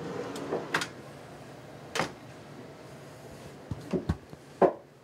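A wooden under-berth drawer being pushed shut, giving a series of knocks and clicks, loudest about two seconds in and again near the end.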